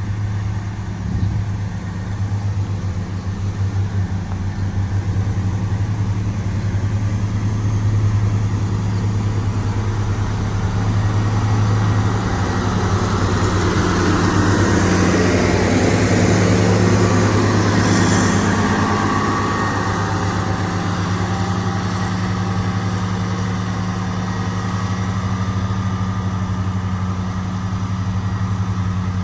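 Motor grader's diesel engine running steadily with a low hum, while a broad rushing noise swells up about halfway through and fades a few seconds later.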